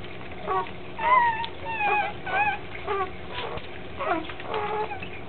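Newborn Labrador retriever puppies, less than a day old, squeaking and whining as they nurse: the puppy 'singing' of a newborn litter. It comes as a string of short calls, about one every half second, each wavering up and down in pitch.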